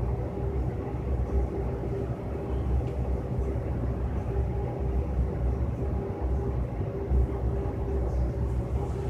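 Steady low mechanical rumble and hum with a faint tone that comes and goes, and no distinct knocks or other events.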